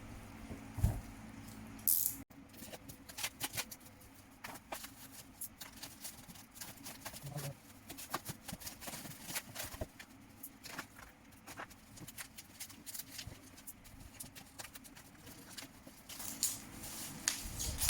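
Parcel packaging being opened and handled by hand: irregular snips, clicks and rustles, with a louder scrape about two seconds in.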